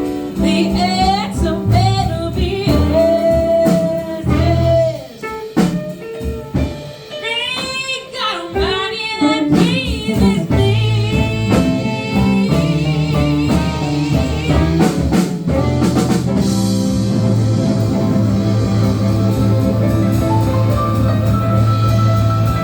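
Live soul band with a singer: held, wavering sung notes with vibrato over guitar and drums for the first ten seconds or so, then the band playing on with sustained chords and a steady drum beat.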